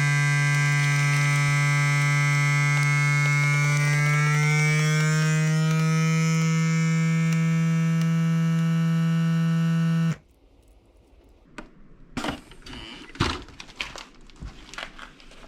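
FoodSaver vacuum sealer pump drawing the air out of a bag of raw chicken: a steady buzzing hum whose pitch creeps slightly upward as the vacuum builds, cutting off suddenly about ten seconds in. Then scattered clicks and plastic rustles from handling the sealer and bag.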